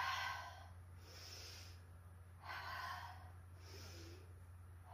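A woman breathing audibly in time with chair-pose movements: two full breath cycles, each a louder exhale as she sinks low, followed by a softer, higher-sounding inhale as she lifts. The exhales fall at the very start and about three seconds in.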